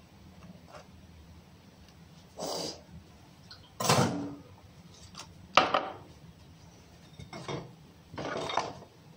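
Kitchen clatter: dishes and utensils handled and set down on the counter, about five short knocks and clinks with the loudest about four seconds in, over a low steady hum.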